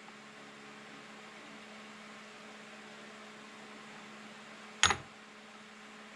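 Steady electrical hum of a workshop, with a single sharp knock near the end, likely a metal tool or part being set down or tapped while the soft jaw is squared up.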